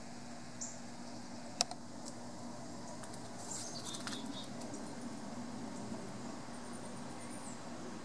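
Backyard garden ambience on a windy day: a steady outdoor hiss with a faint low hum, a single sharp click about a second and a half in, and faint high chirps of small birds around the middle.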